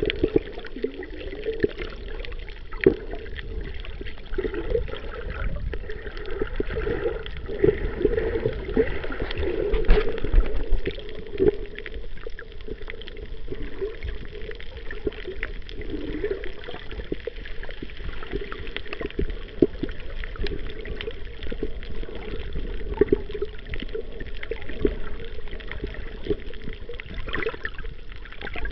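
Water gurgling and sloshing, heard muffled through an underwater camera, with many small clicks and pops scattered through it.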